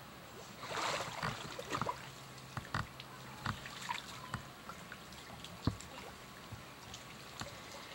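Creek water splashing and sloshing as a person wades and drags brush through it, with scattered snaps and knocks; the biggest splash comes about a second in.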